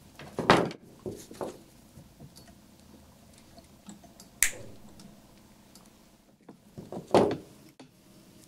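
Handling noises from small jewelry pliers being picked up, worked on a wire and put down: a few short knocks and clicks, the loudest about half a second in and again about seven seconds in, with a sharp click at about four and a half seconds.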